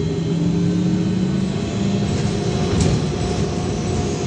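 VMZ-5298.01 trolleybus running along the street, heard from inside the passenger cabin: a steady rumble of the body and road with an even electric hum from the traction drive.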